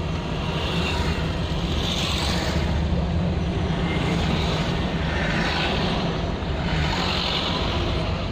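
Car cabin noise while driving: a steady low drone from the engine and road, with a hiss that swells and fades several times.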